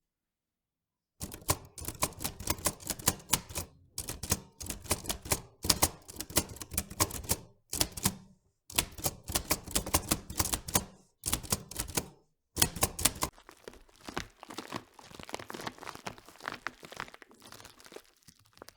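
Rapid crisp clicks and crackles in quick runs separated by brief silences, turning into fainter, denser crackling over the last few seconds.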